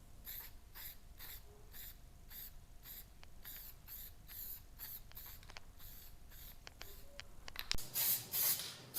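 Aerosol can of headliner spray adhesive hissing in quick short passes, about three a second, growing louder and longer about eight seconds in.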